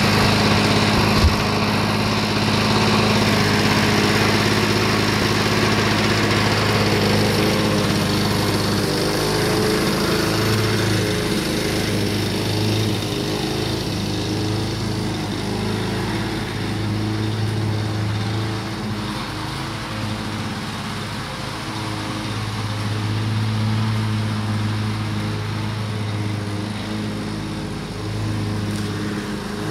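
Walk-behind lawn mower's engine running steadily while it is pushed across a lawn. Its level rises and falls gently as the mower moves about.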